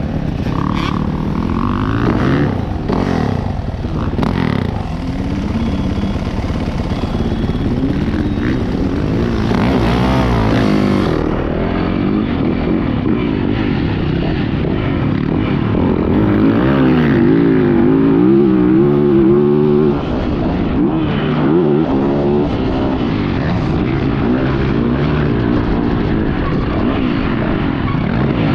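Yamaha YZ450F motocross bike's four-stroke single-cylinder engine being ridden hard, its revs rising and falling over and over as the rider works the throttle and gears, with wind rush over it. The engine note dips briefly about twenty seconds in.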